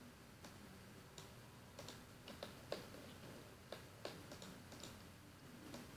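Faint computer mouse clicks at irregular intervals, some in quick pairs, over quiet room tone; the loudest comes a little before the midpoint.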